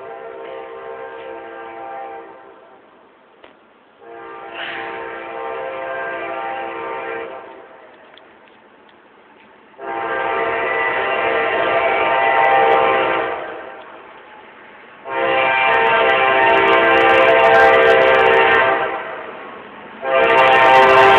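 Diesel locomotive air horn, the lead Kansas City Southern GE ES44AC's, sounding a string of long chord blasts of about three to four seconds each with short gaps between them. Each blast is louder than the one before as the train draws near.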